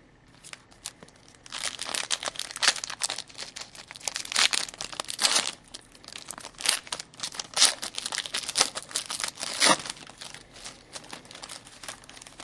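A trading-card pack wrapper being torn open and crumpled by hand, a run of crinkling crackles lasting about ten seconds, louder in several bursts.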